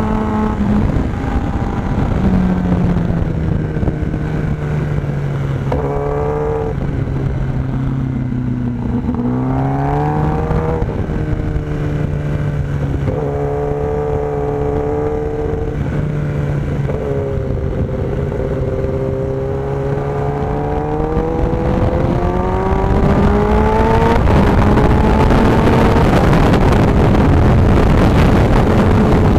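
Kawasaki ZX-10R's inline-four engine heard onboard at racing speed, its pitch climbing and dropping several times as the bike is accelerated, shifted and slowed through corners. From about three quarters of the way in it gets louder and rougher, with wind rush on the microphone rising as the bike accelerates.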